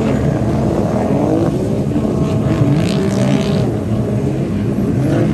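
Racing runabout jet skis running at high revs, several engines at once, their pitch rising and falling as they pass.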